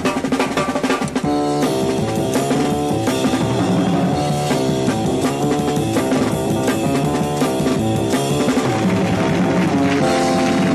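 Drum solo on a Ludwig drum kit: fast fills across snare, toms, bass drum and cymbals. About a second in, sustained keyboard chords and bass guitar come in and the band plays on over the drumming.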